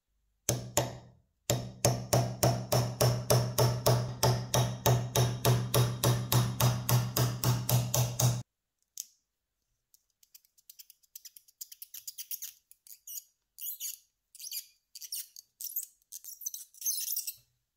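Rapid, even hammer taps on a pin punch, about four or five a second over a steady low hum, driving the old rivet out of the screwdriver's wooden handle clamped in a steel bench vise. After a pause, light irregular scratching as a thin pick works at the rivet hole.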